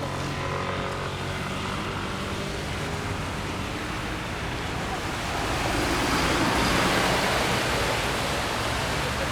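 Rainy city street ambience: steady hiss of rain and traffic with a low engine hum, and a vehicle swishing past on the wet road, loudest about six to eight seconds in.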